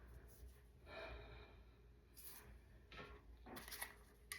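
Near silence: room tone with a low hum and a few faint, short rustles.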